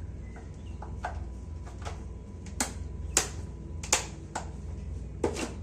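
Scattered sharp clicks and taps of kitchen containers and utensils being handled, the loudest between about two and a half and four seconds in, over a steady low hum.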